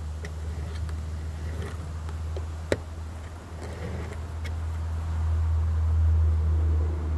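A steady low rumble that swells toward the end, with one sharp crack a little under three seconds in.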